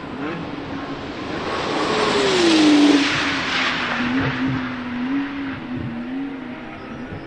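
Porsche 991 GT2 RS's twin-turbo flat-six passing at speed. The sound builds to its loudest about three seconds in, where the engine note drops in pitch as the car goes by. The note then holds lower and wavers as the car pulls away.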